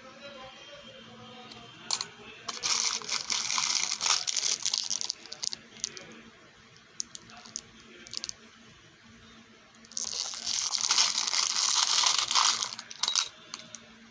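Small metal jewellery charms clinking and rattling against each other as a plastic packet of them is handled, with the plastic crinkling. It comes in two bursts of about three seconds each, starting about two and a half seconds in and about ten seconds in, with a few single clicks between them.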